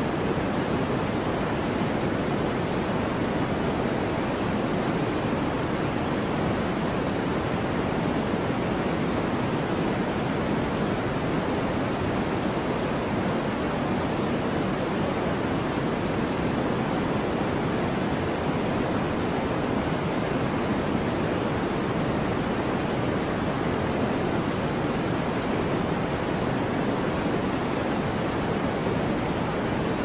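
Steady white noise, weighted toward the low end so it sounds like a soft, even rush, with no changes or events.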